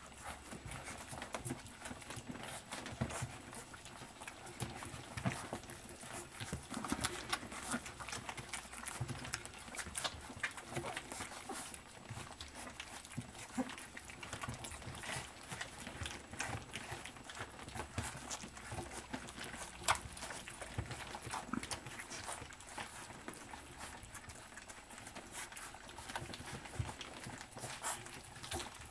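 A litter of puppies eating wet food together from a stainless steel feeding pan: a busy, irregular stream of lapping, smacking and chewing clicks, with occasional knocks against the metal pan.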